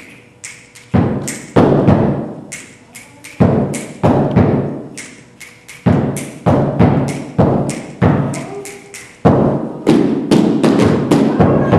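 Step dancers' body percussion: sharp stomps and slaps on the stage floor, each ringing out in the hall, in an uneven rhythm that gets faster and denser over the last couple of seconds.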